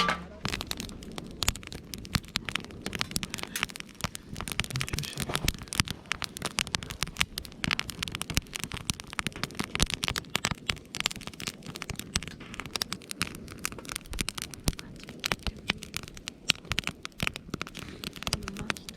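Wood campfire crackling, with many sharp, irregular snaps.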